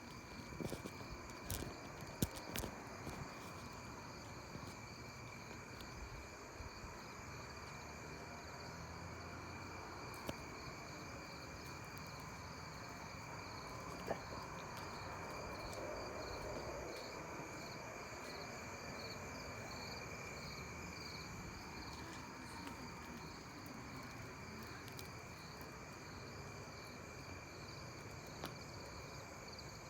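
An unexplained rushing, pulsating hiss heard from the night sky, sounding like heavy highway traffic and coming from all directions, swelling slightly midway. Insects chirr steadily at a high pitch over it, and there are a few handling clicks near the start.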